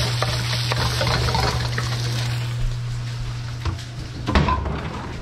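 Chicken pieces sizzling in oil in a hot wok, stirred with a wooden spatula, over a steady low hum. The sizzle fades after about three seconds, and a few knocks and clatters follow as a wooden cabinet door is opened and things inside are moved.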